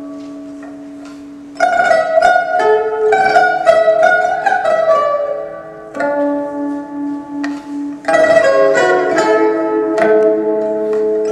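Pipa quartet playing. A held note fades, then about one and a half seconds in the pipas come in loudly with a quick run of plucked notes. A softer passage follows with a low note pulsing several times, and loud ensemble playing returns near the end.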